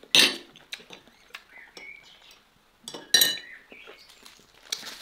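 Metal cutlery clinking against tableware: a sharp clatter just after the start, a few light ticks, then a second clink about three seconds in that rings briefly.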